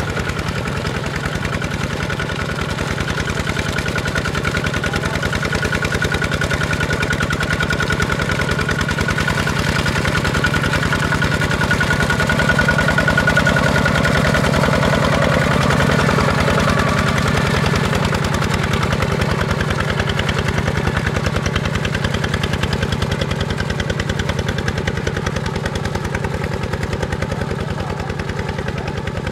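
Kubota ZT155 single-cylinder diesel engine of a two-wheel walking tractor running steadily with a fast, even chugging, a little louder around the middle.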